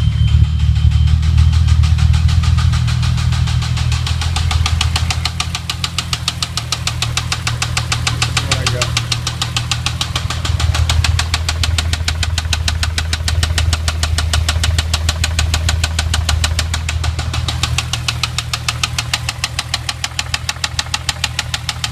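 Volkswagen VR6 engine running with a rapid, regular knock over its steady drone, loudest in the first few seconds. The knock follows a timing chain replacement, and the owner suspects the timing has jumped.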